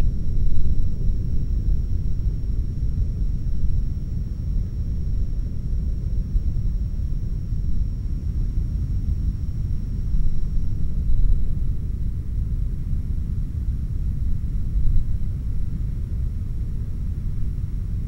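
Steady low rumble of a Falcon 9 rocket's first stage, its nine Merlin 1C engines firing during ascent.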